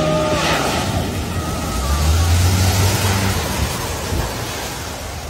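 Lifted Land Rover Discovery wading through a flooded ford, its tyres throwing up a steady spray of water over the engine's low drone, which grows louder about two seconds in. A short pitched tone sounds at the very start.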